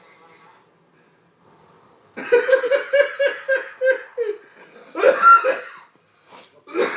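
A person laughing hard in a quick run of 'ha' pulses, about four a second, then two shorter bursts of laughter.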